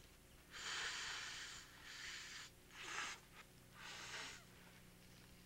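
A man taking hissing draws on a marijuana joint, four sharp pulls of breath: one long one, then three shorter ones.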